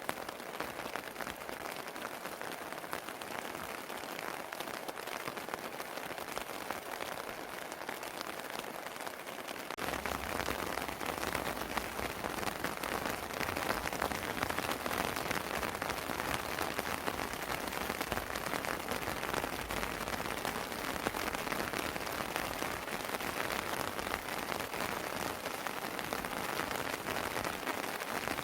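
Steady rain falling on a terrace, an even hiss of many drops; about ten seconds in it becomes louder and fuller.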